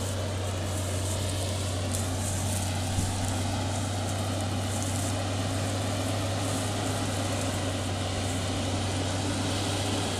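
New Holland tractor's diesel engine running steadily as it pulls two trailers across stubble, a deep even drone. A single sharp knock about three seconds in.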